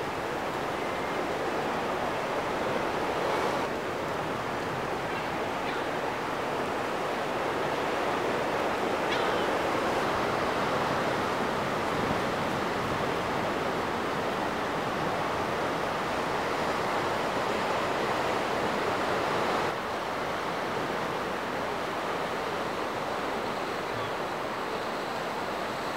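Steady sea noise of waves washing against rocky shore, with wind on the microphone; the level steps abruptly twice, about 3.5 and 20 seconds in.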